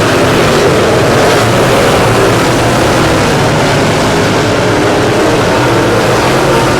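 Dirt late model race car engines running hard and steady, the engine note wavering slightly.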